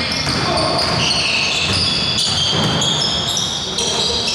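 Basketball game play on a hardwood gym floor: the ball bouncing and players' sneakers squeaking in short high chirps.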